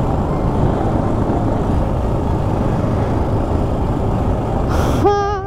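Yamaha XT 600 single-cylinder four-stroke engine running steadily under way on the road, mixed with wind noise on the bike-mounted camera's microphone.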